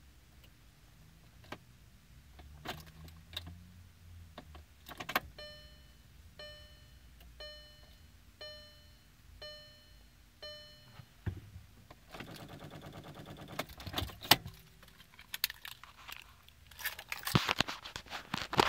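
2014 VW Passat with a flat battery failing to start: scattered clicks, then a dashboard warning chime sounding six times about once a second. A rapid buzzing chatter of relay or starter-solenoid clicks follows, the typical sign of a battery too weak to crank the engine. Louder clicks and a rattle come near the end.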